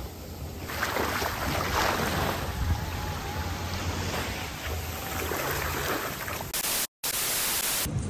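Small waves washing up a sandy beach at the water's edge, a steady rushing noise. About six and a half seconds in it gives way to a loud, even hiss like static, broken once by a very short dropout.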